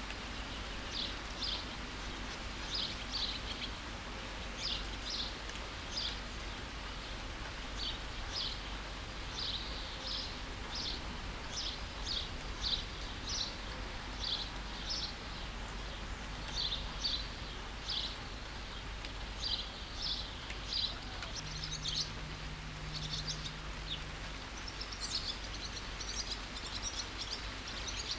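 Steady rain with a bird repeating short, high chirps about once or twice a second. More birds join in with busier overlapping chirping near the end.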